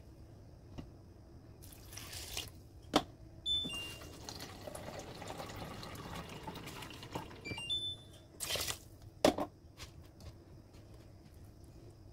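Water poured into a rice cooker's inner pot over rice, eggplant and ground beef, a steady pour lasting about four seconds. Sharp knocks come just before the pour and again near the end.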